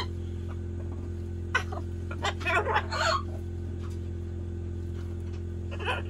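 Blue-and-yellow macaw making short, scratchy squawks and chattering calls while playing: one about a second and a half in, a quick cluster around two to three seconds in, and one more near the end, over a steady low hum.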